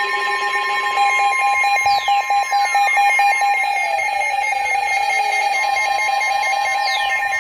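Emergency Alert System alert tones: a steady alarm of several held tones, one of them pulsing rapidly for a few seconds, with falling sweeps in pitch starting about two seconds in and again near the end.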